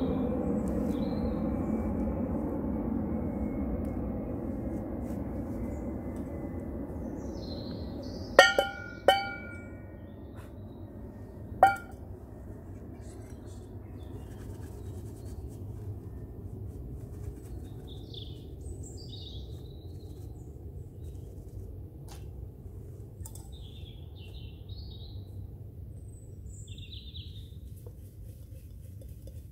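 Metal camping cookware being handled: three sharp clinks with a bright ringing tail, two close together and a third a few seconds later, over a low rushing noise that fades away during the first third. Birds chirp faintly in the background.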